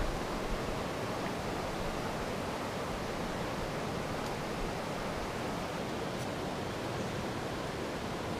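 Steady rushing of flowing stream water, an even hiss with no let-up.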